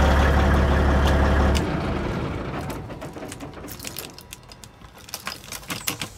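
Peterbilt 379's C15 Caterpillar diesel idling with a steady low rumble through 8-inch stacks, then cutting out about a second and a half in as the engine runs down. A scatter of light clicks and ticks follows.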